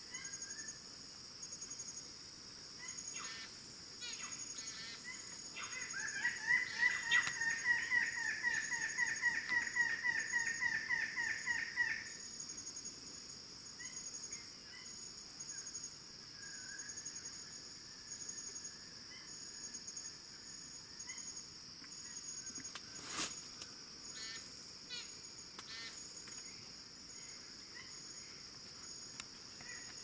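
Red bird-of-paradise giving a loud, rapid series of repeated calls, about five a second for some six seconds, with a few shorter call bursts before and after. Steady high-pitched insect buzzing runs underneath, and a single sharp click comes about 23 seconds in.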